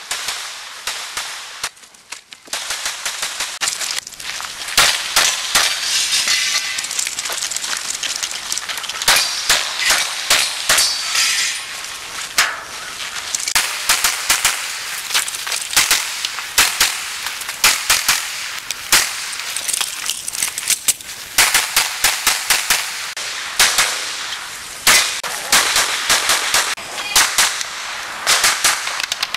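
Glock semi-automatic pistols fired in rapid strings, several shots a second, with short breaks between strings and a brief lull about two seconds in.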